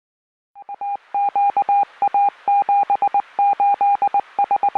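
Morse code sent as a single steady beeping tone, keyed on and off in quick runs of short dots and longer dashes grouped into letters.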